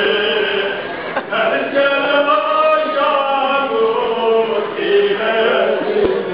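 A crowd of men chanting together in long, drawn-out sung phrases.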